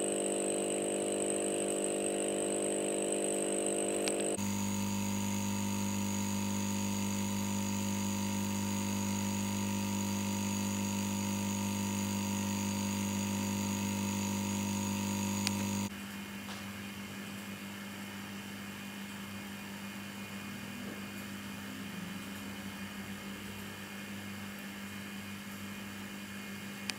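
Three aquarium air pumps, electromagnetic diaphragm types, each running steadily on its high setting in turn. An Aqua One Precision 9500 hums for about four seconds, then an Aqua One Precision 12000 hums with a strong low tone. About sixteen seconds in, a Hailea ACO-9610 takes over, clearly quieter than the other two.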